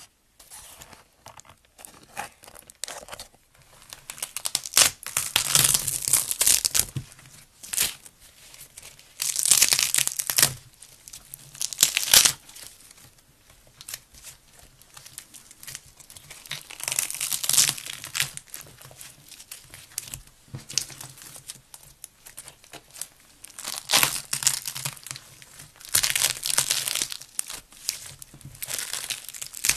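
Hands squeezing, pressing and pulling apart fluffy slime mixed with foam beads, making crackly, tearing sounds in irregular bursts of a second or two.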